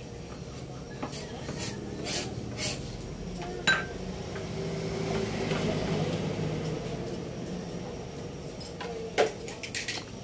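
Pot of pork broth boiling under a glass lid: a steady low rumble that swells in the middle. A few light knocks, and a sharp clink near the end as the lid is taken hold of.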